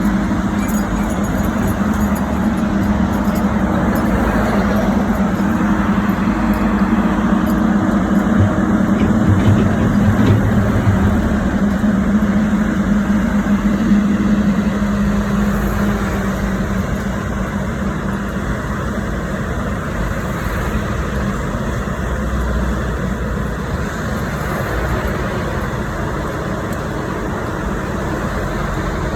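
Heavy engines running steadily, with a low drone that fades out about halfway through.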